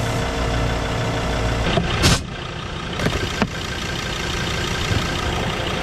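Air compressor running steadily while a vehicle tyre is pumped back up to road pressure. A short sharp noise comes about two seconds in, and another just after three seconds.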